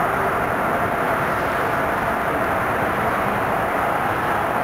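Caterpillar demolition excavator's diesel engine running steadily, a constant machine noise with no crashes or impacts.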